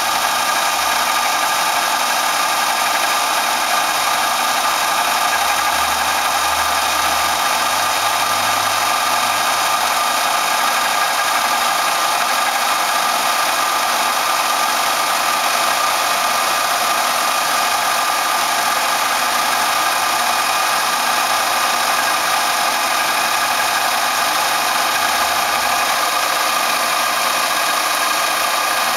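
1982 Phillips gun drilling machine running steadily while its spindle head feeds slowly along the ball screw: an even mechanical hum with a steady high whine, unchanging throughout.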